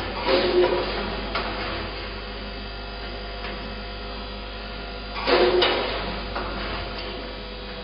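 Four-head linear weigher running: a steady hum from its vibratory feeders. Short louder mechanical bursts come about half a second in and again around five seconds in, as the weigh-hopper gates cycle to discharge a portion.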